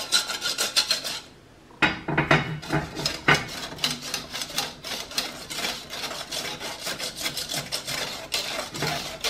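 Wire whisk scraping rapidly against the bottom and sides of a stainless steel saucepan while beating thick chocolate caramel. The strokes stop briefly about a second in, then start again.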